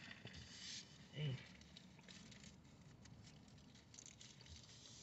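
Near silence in a car cabin: faint rustling and small ticks, with one short low hum about a second in.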